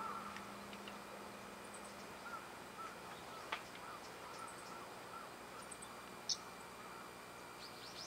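Faint outdoor ambience with birds chirping: many small repeated chirps, a sharp high call about three and a half seconds in and another about six seconds in, over a low steady hum.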